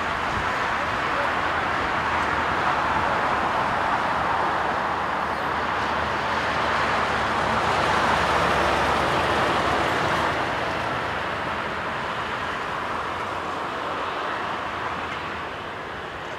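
The four Rolls-Royce Trent 970 turbofans of an Airbus A380-841 at takeoff thrust during the takeoff roll. The jet noise swells to its loudest about halfway through as the aircraft passes, then fades as it rotates and lifts off.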